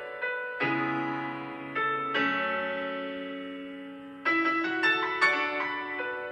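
Opening of a rap track: piano chords struck and left to ring and fade, a new chord every second or two, then quicker notes in the last couple of seconds.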